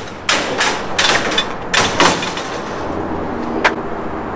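Spring-assisted metal-mesh ramp gate on a pickup being swung up shut: a quick series of sharp metal clanks and rattles over the first two seconds, then one sharp click near the end as it is pushed closed.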